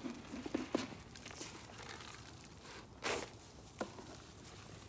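Scattered light knocks and rustles, with one short, louder rustle about three seconds in.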